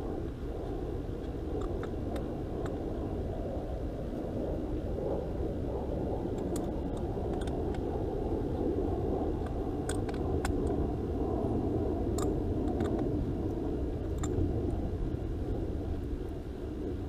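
Steady low outdoor rumble, with a few brief metal clicks scattered through it as wrenches tighten a hardline coax pin connector onto a cable tap.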